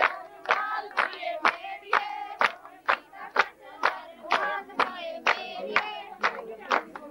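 Group of women singing boliyan for giddha, the Punjabi folk dance, clapping a steady beat of about two claps a second.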